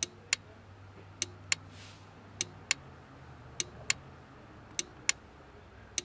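Turn signal clicking in a 1967–68 Mercury Cougar: sharp clicks in pairs about a third of a second apart, a pair about every 1.2 s, in step with the dash indicator's on-off flash. The indicators are working properly with the new solid-state indicator relay, which gives a mechanical click in time with the signals.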